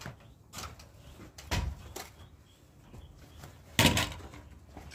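A few scattered knocks and thumps, the loudest near the end, from a worker handling a cordless circular saw and climbing a stepladder; the saw is not running.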